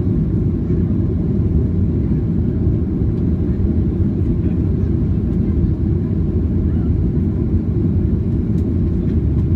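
Steady low rumble of jet engine and airflow noise inside the cabin of a Ryanair Boeing 737-800 at high thrust on takeoff.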